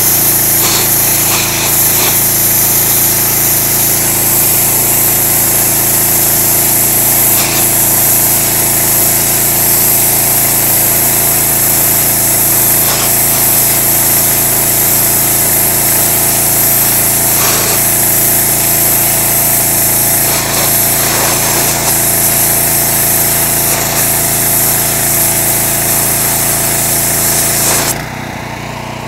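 Sandblaster spraying abrasive onto a steel truck door: a loud, steady rushing hiss of air and sand, over a steady motor hum. Near the end the blast cuts off for a moment while the hum runs on.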